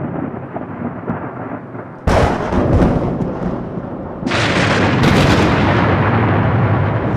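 Thunderstorm noise: rain, then a sudden loud crash about two seconds in and a second one about four seconds in that holds as a steady roar.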